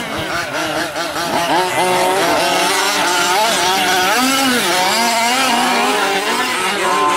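Several 5th-scale gas RC trucks' small two-stroke engines racing, each pitch rising and falling as the throttles open and close through the corners.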